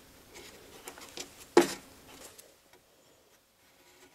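A small wooden block being handled and pressed into place against plywood trim: a few light wooden clicks, then one sharp knock about a second and a half in, followed by faint rubbing of a paper towel near the end.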